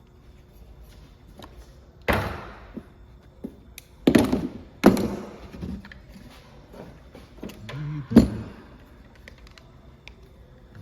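Four heavy knocks of hard objects, at about two, four, five and eight seconds in, each with a short ringing tail, the loudest around four and five seconds.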